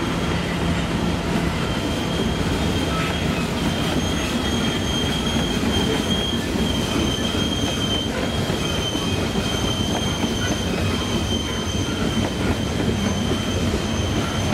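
Loaded coal hopper cars of a freight train rolling past, a steady rumble of steel wheels on rail. A high, steady wheel squeal comes in about two seconds in and holds.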